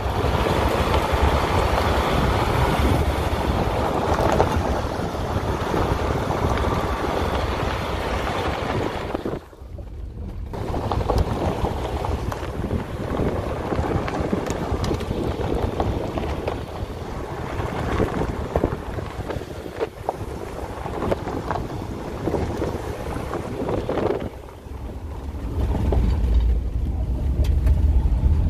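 Honda CR-V rolling along a gravel road: steady tyre and road noise with wind buffeting the microphone. The level drops briefly twice, about ten seconds in and again around twenty-four seconds, and a heavier low wind rumble comes in near the end.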